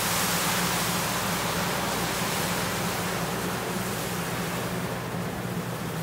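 Water poured onto a hot steel flat-top griddle, boiling and sizzling into steam as it spreads over the grill cleaner and burnt grease. The hiss is loudest about a second in and eases slightly, over a steady low hum.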